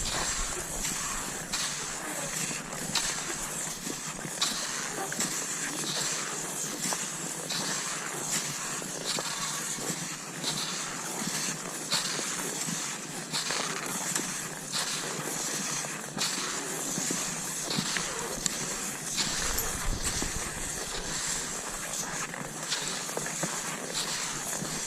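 Cross-country skis sliding over snow in a steady hiss, with a short sharp stroke recurring about every second and a half as the skier strides.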